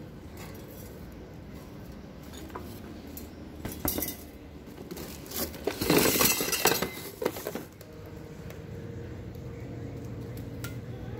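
Tricycle parts being handled while unboxing: a steel frame tube and a plastic basket clink and knock, with rustling packaging. The clatter is loudest from about five to eight seconds in, over a steady low hum.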